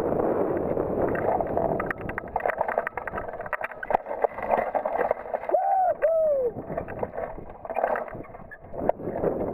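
Wind rushing over the microphone of a hang glider coming in to land. From about two seconds in, the rush gives way to a run of clicks and knocks from the glider's frame and rigging as it flares and touches down. Just after the middle come two short whoop-like calls, each rising then falling.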